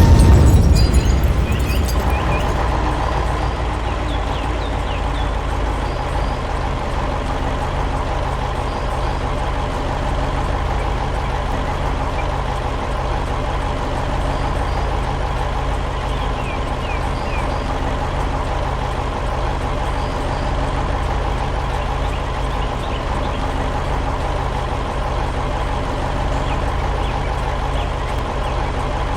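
Heavy truck engine running steadily at an even pitch. A loud boom fades out during the first second or two.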